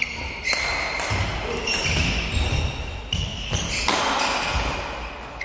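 Badminton singles rally: several sharp racket hits on the shuttlecock, with shoes squeaking on the court floor between them.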